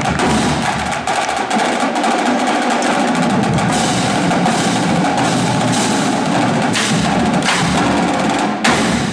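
Indoor drumline (snare drums, multi-tenor drums and bass drums) playing together in a dense, continuous passage. It ends on a loud accented hit near the end that dies away in the echoing gym.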